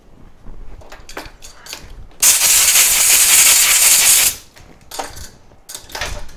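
A few short hissing spurts, then a loud, steady pressurised hiss lasting about two seconds, then more short spurts: a spray blast cleaning dirt off a CPU reballing stencil.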